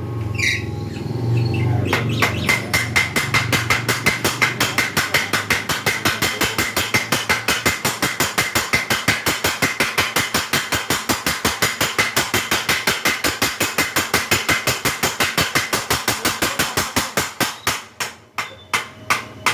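A blacksmith's mechanical power hammer striking in a fast, even rhythm of about five blows a second, starting about two seconds in after a low hum. Near the end the blows slow and come singly.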